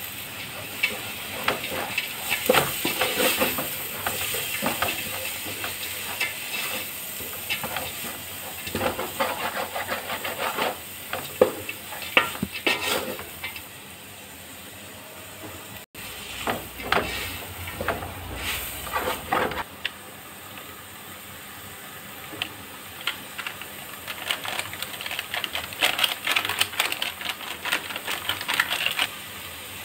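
Chopped vegetables sizzling in a hot aluminium pot with a steady hiss. A wooden spatula stirs and scrapes against the pot in spells of quick strokes.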